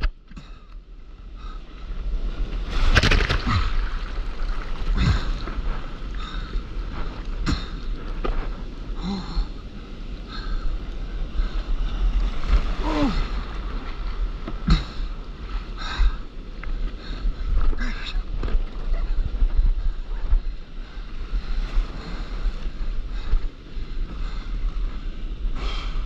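Whitewater foaming and rushing around a stand-up paddleboard as it is paddled out through broken surf, with a splash from the paddle every couple of seconds over a steady low rumble.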